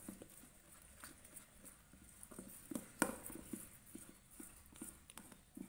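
Metal spoon stirring thick risen rice-flour batter in a stainless steel bowl, knocking faintly against the bowl about three times a second, with one sharper clink about three seconds in. The batter is being stirred down to let the trapped air out.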